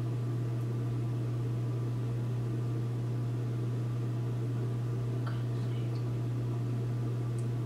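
Steady low hum with a hiss over it, unchanging throughout: the background noise of a recording made without a dedicated microphone. A couple of faint soft sounds come about five seconds in.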